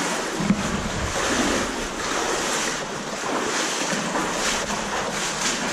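Shallow underground river water rushing and sloshing, with irregular splashes from someone wading through it.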